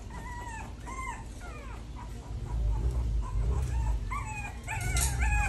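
Several three-week-old American bully puppies whining and yipping: short, high cries that slide down in pitch, overlapping and coming thicker near the end.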